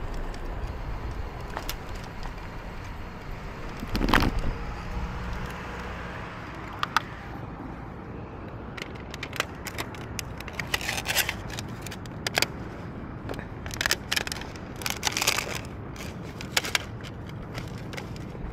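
Urban street ambience heard on the move: a steady low rumble of traffic and air, a single thump about four seconds in, and clusters of short rattles and clicks through the second half.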